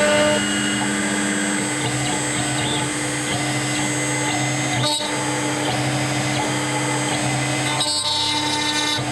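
CNC router spindle running with a steady whine while a straight cutter mills into a wooden frame, clearing out the inside corners of a recess.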